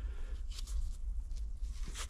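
Scattered light clicks and taps of hand tools and metal engine parts being handled, over a low steady hum.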